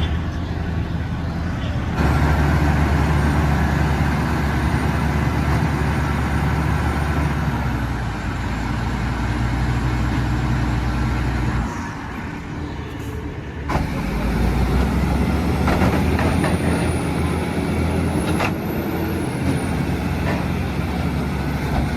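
Heavy truck engines running loud and steady, in several clips cut together; the sound changes abruptly about 2, 12 and 14 seconds in.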